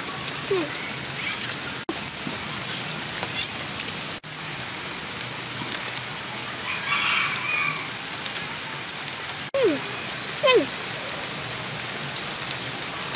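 Steady hiss like light rain, with scattered small clicks and a few short falling calls.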